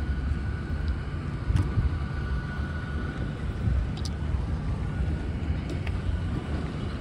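Transit bus engine running nearby: a steady low rumble with a faint steady whine above it, and a few light clicks.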